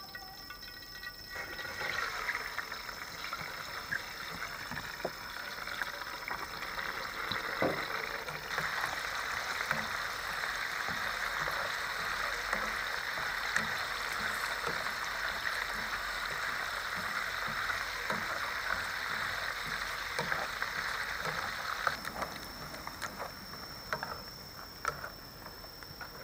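Boiled quail eggs sizzling and crackling as they fry in hot oil. The sizzle starts about a second and a half in, grows louder about eight seconds in, and eases off near the end.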